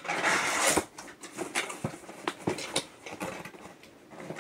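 Cardboard toy box being opened and handled: a rush of cardboard scraping and rustling in the first second, then scattered taps, clicks and rustles.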